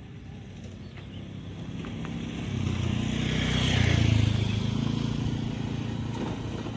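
A motorcycle passing close by over the level crossing: its engine grows louder over a few seconds, is loudest about four seconds in, then fades away.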